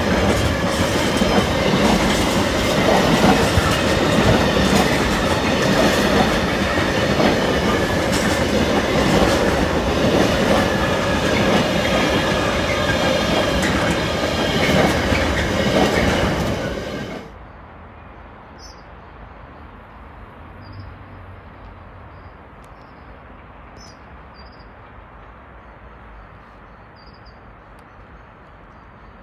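Intermodal container freight train's wagons rolling past at speed, a loud steady rumble with the wheels clattering over rail joints. About 17 seconds in the sound cuts off suddenly to quiet station background.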